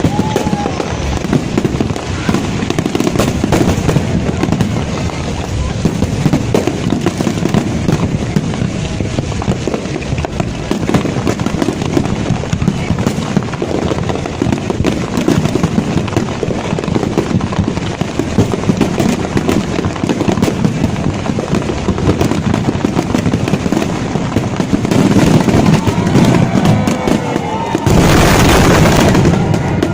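Fireworks display: a dense, continuous barrage of bangs and crackles, with a louder burst of crackling about 28 seconds in that lasts over a second.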